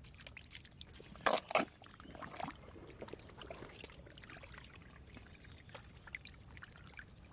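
A hand digging in soft, watery tidal mud to work a buried plastic snail trap loose: wet squelching with trickling and dripping water. Two louder squelches come about a second and a half in.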